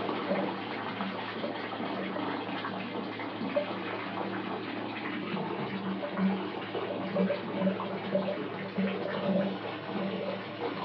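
Water pouring from a tap into a bathtub, a steady rushing fill, with short low pulses coming and going more often in the second half.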